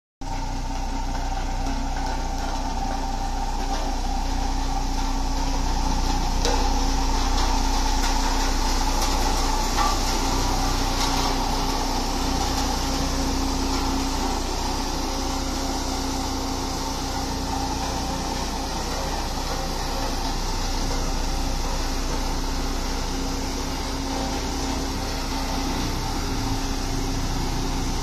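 LiuGong single-drum road roller's diesel engine running steadily as the roller drives slowly along the road, with a strong low hum.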